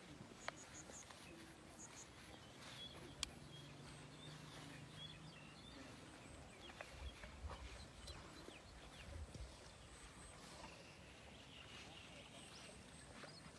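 Near silence: faint outdoor ambience with a few scattered soft clicks and knocks, and a brief low-pitched noise about seven to nine seconds in.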